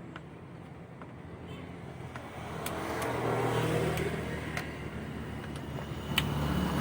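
A motor vehicle's engine going by, growing louder about three seconds in and easing off, with a few faint clicks over it.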